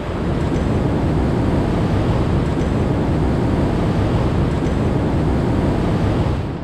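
Rushing whitewater of a Snake River rapid heard from a raft, a loud, even rush with a deep rumble of water and wind buffeting the camera microphone. It starts and stops abruptly.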